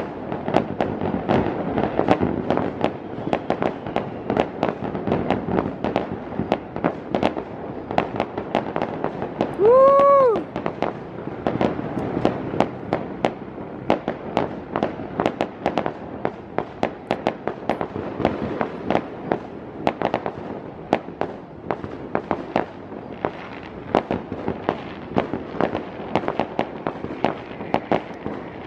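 New Year's fireworks going off in a dense, unbroken run of many overlapping pops and bangs. About ten seconds in, one short pitched whoop, rising then falling, stands out as the loudest sound.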